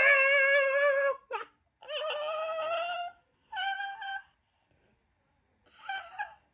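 A man's high-pitched, squealing laughter: four long held squeals with short gaps between, the last one shorter and fainter.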